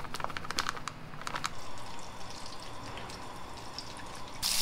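Plastic bag of chicken-frying flour crinkling with a run of sharp crackles as it is poured into a bowl, then the softer scratchy rustle of chicken pieces being rubbed in the flour. Just before the end, hot oil starts to sizzle.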